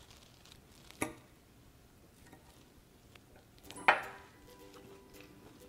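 Metal fork clinking against a ceramic plate while salad is forked up, twice: a light tap about a second in and a louder, ringing clink near four seconds in.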